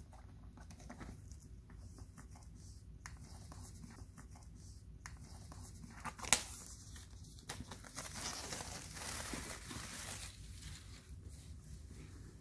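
A parcel being unpacked: scattered handling clicks, a sharp snap about six seconds in, then a few seconds of packaging tearing and crinkling.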